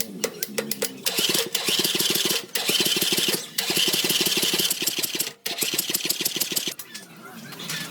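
Tractor engine running with a fast, even chug of firing pulses, which breaks off briefly three times.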